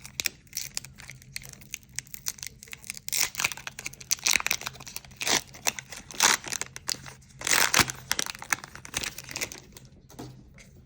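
Foil wrapper of a Pokémon trading card booster pack crinkling and tearing open by hand, irregular crackles with several louder rips through the middle.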